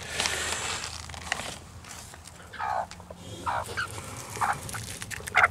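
Hens clucking: about four short calls, roughly a second apart, from about halfway on, with a rustle at the start.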